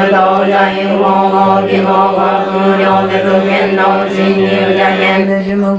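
A group of voices chanting a Buddhist sutra in unison, held on one steady monotone pitch.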